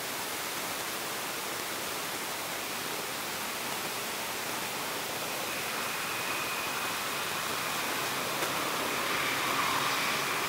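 Steady hiss of outdoor background noise, with a faint high steady tone joining about halfway through.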